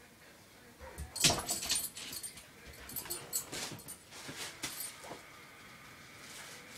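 A 10-month-old blue heeler–Australian Shepherd mix making a string of short, quiet whimpers and yips. The sounds start about a second in and die down after about five seconds. It is the eager noise of a dog fixed on a spot of reflected sunlight it wants to chase.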